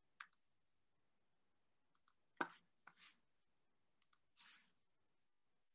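Near silence broken by faint clicks, three times in quick pairs and once as a sharper single click about two and a half seconds in, with a faint breath-like hiss near the end.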